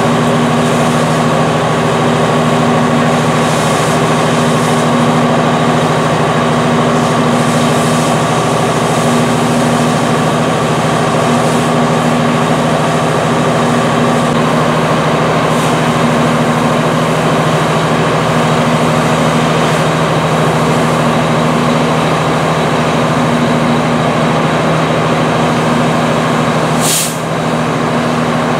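A fire engine's diesel engine running steadily at pumping speed, a constant hum under a thick hiss of water spraying from the hose lines.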